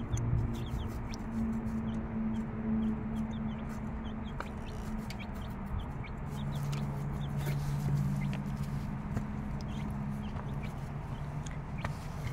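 Mother hen clucking low to her six-day-old chicks, with the chicks' short faint high peeps and light pecking and scratching in wood shavings.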